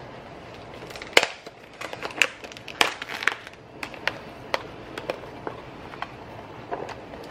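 Sliced mushrooms being tipped from a plastic container into a pot of raw chopped vegetables: a run of irregular clicks and light taps over a steady low hiss.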